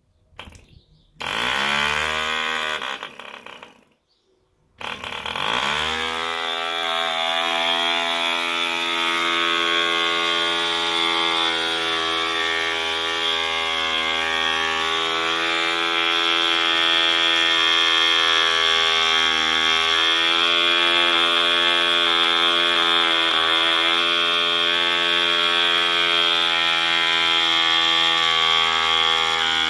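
Mills 1.3 cc model-aircraft diesel engine turning a wooden propeller: after a few pops it catches about a second in, runs briefly and stops, then catches again around five seconds in, its note rising as it picks up revs. It then runs steadily at high revs with a slight waver in pitch.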